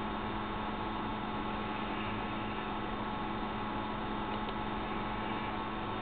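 A steady hum with hiss, unchanging throughout, with no distinct events.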